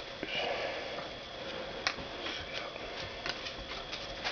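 Trading cards being handled and flipped through by hand: a few faint, scattered clicks and slides of card stock.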